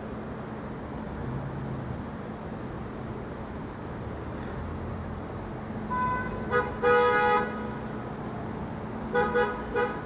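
Street traffic with car horns honking: a short toot about six and a half seconds in, a longer blast right after it, then three quick toots near the end.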